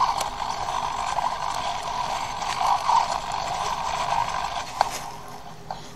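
Hexapod robot's hobby servos running with a steady whirring buzz and crackling, the worn gears grinding as the legs strain. A sharp click comes near the end, after which the sound drops off.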